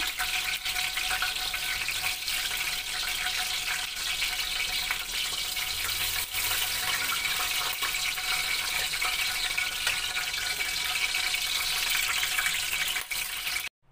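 Flour-coated chicken hearts deep-frying in hot oil: a steady sizzle with scattered crackles, cutting off abruptly near the end.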